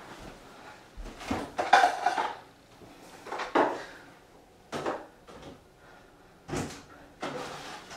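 Kitchen cupboard and dishes being handled off to the side: several separate knocks and clatters a second or so apart.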